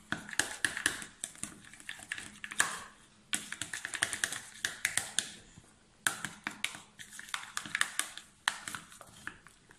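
A metal teaspoon stirring slime in a small plastic tub, clicking and tapping rapidly against the tub's sides in bursts of a second or two with short pauses between them. The borax and shaving-cream mixture is just beginning to come together into slime.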